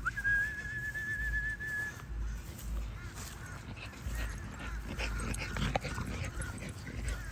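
Puppies whining: one long, high, slightly wavering whine lasting about two seconds, then from about three seconds in a run of short whimpers and yips, over a low rumble.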